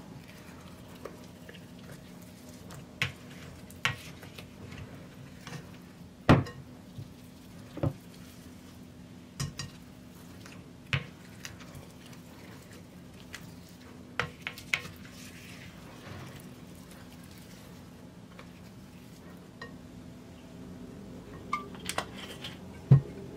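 White spatula knocking and scraping against a glass mixing bowl as wet dough is folded: about a dozen sharp taps, irregularly spaced, over a faint steady hum.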